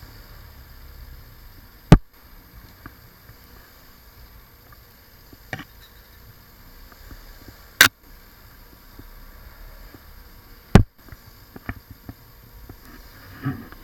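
Three loud, sharp knocks or cracks, about two, eight and eleven seconds in, with a fainter one between the first two, over a low steady hiss; small crackling and rustling sounds near the end.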